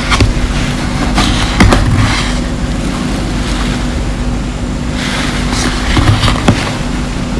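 Close-up crunching of candy grapes as the hard sugar shell cracks between the teeth, in several crackly crunches over a steady low hum.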